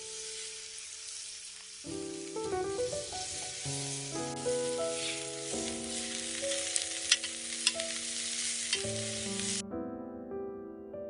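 Wood fire crackling in a fireplace: a steady hiss with scattered sharp pops, the loudest about two-thirds of the way through. The fire sound cuts off abruptly near the end, leaving soft piano music.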